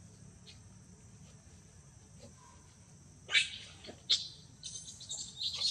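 Short high-pitched animal squeaks: two sharp ones about three and four seconds in, then a quick run of them near the end, over a steady high insect drone.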